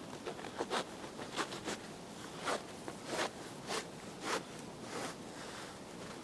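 Paracord and a stick being drawn through a hole in a canvas seat in short, uneven pulls, each a brief rasping zip of cord on fabric, about ten over six seconds.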